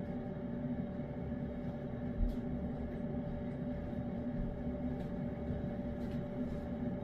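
A steady, even mechanical hum, with a few faint clicks and one soft low thump about two seconds in.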